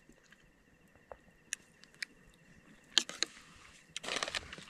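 A metal spoon clinks and scrapes against a plate a few times while eating, with a couple of louder clacks about three seconds in and a short crackly rustle near the end.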